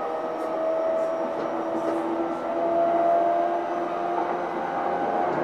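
Running sound inside a JR East E233-1000 series electric train's motor car: the VVVF inverter and traction motors whine as several steady tones over the noise of the wheels on the rails.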